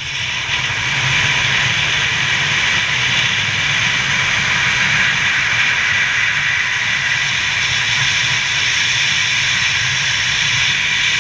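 Loud, steady rush of wind buffeting the microphone of a camera carried in wingsuit flight: a hiss over a deep rumble, swelling in the first half second and then holding level.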